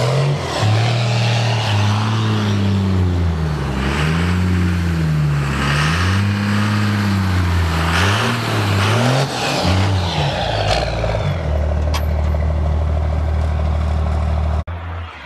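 Old Dodge pickup's engine revving up and down over and over as the truck spins donuts on snow, wheels spinning. For the last few seconds it holds a steady pitch, then breaks off sharply near the end.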